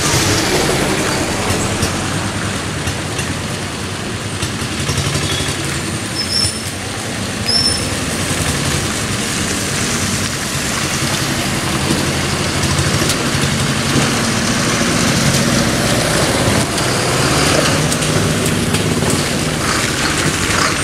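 Road traffic crawling over a broken, potholed road: engines of a pickup truck, cars, a minibus and a large bus passing slowly and close by, in a steady mix of engine running and tyre noise.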